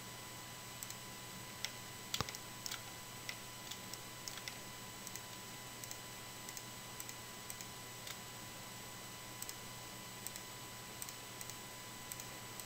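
Faint, irregular clicks of a computer mouse and keyboard, about one or two a second, as edges are selected one after another, over a low steady hum.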